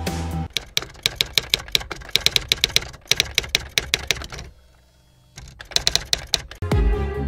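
Typewriter typing sound effect: rapid runs of sharp key clicks with a short pause a little past halfway. Music stops about half a second in, and electronic music comes in near the end.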